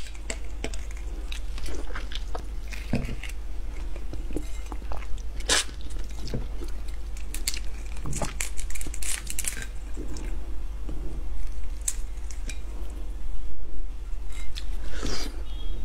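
Shell of a large raw red prawn being pulled apart and peeled by hand: irregular wet crackles and sharp little snaps of shell, with soft squishing, in small clusters. A low steady hum runs underneath.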